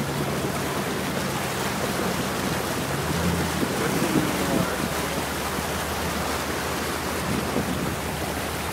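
Jeep Grand Cherokee ZJ's 5.9-litre V8 running at low speed with a steady low hum while the vehicle pushes through deep floodwater, water rushing and sloshing against the body. The sound swells a little from about three to four and a half seconds in.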